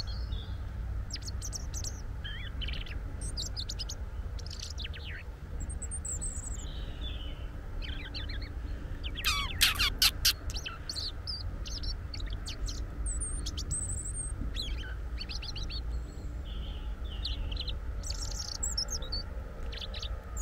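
European robin calling: short high chirps and twittering notes scattered throughout, with a louder burst of notes about halfway through, over a steady low rumble.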